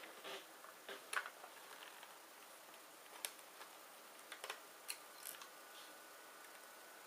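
Faint, scattered small clicks and light taps, about eight over several seconds and irregularly spaced, over a quiet background.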